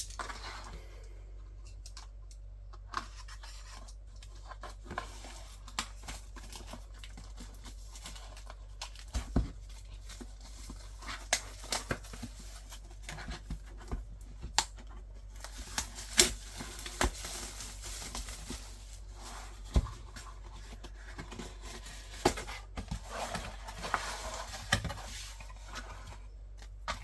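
Packaging being opened and handled by hand: plastic wrap tearing and crinkling, with scattered taps and clicks of items being picked up and set down. The tearing and crinkling is longest about halfway through and again near the end.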